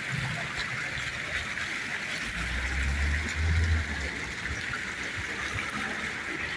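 Water from a small fountain's jets splashing steadily into its basin, with a low rumble from about two to four seconds in.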